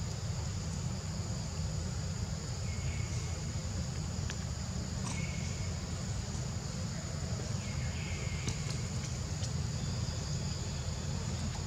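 Steady high-pitched drone of insects over a low rumble, with a few short chirps now and then.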